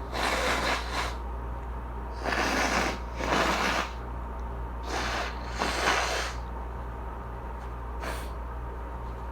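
A person blowing their nose hard: about six separate blows, each under a second, mostly in pairs with short pauses between them, the last one short.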